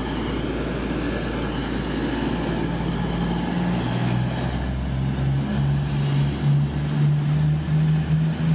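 Class 222 Meridian diesel-electric multiple unit running under its underfloor diesel engines as it draws slowly into the platform: a steady low engine hum over rail and wheel rumble, with a deeper engine note coming in about three and a half seconds in.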